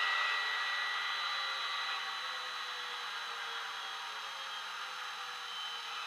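Diesel-mode sound from an ESU DCC sound decoder in a model Stadler Euro Dual locomotive, played through a small bass-enhanced speaker. A steady cooling-fan rush runs over a faint engine note, and both slowly fall in pitch and level.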